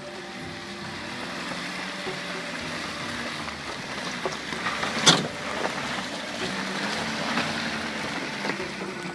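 Mercedes Sprinter-based motorhome driving off-road through mud, its engine running steadily under a rush of tyre and mud noise. A single sharp knock comes about five seconds in.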